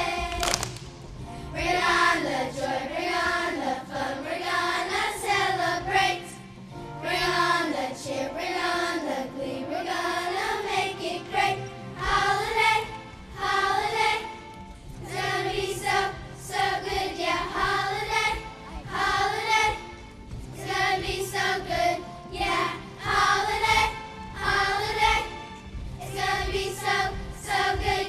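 Student choir singing a holiday song in phrases with short breaks between them, over steady low accompanying notes.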